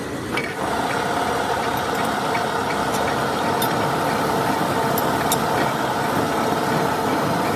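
Heavy workshop machinery starting up about half a second in, then running steadily with a whine of several steady tones and scattered faint clicks.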